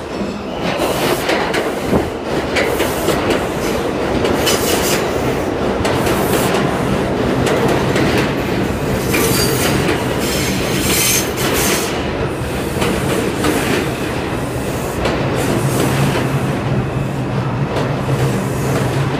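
An R142 subway train pulls into the station alongside the platform, its wheels clattering and squealing on the rails. A steady hum comes up in the later part as it slows toward a stop.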